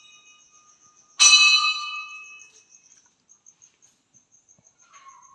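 Temple bell struck once about a second in, ringing out with several clear tones that fade over about a second and a half; the ring of an earlier strike is still dying away at the start.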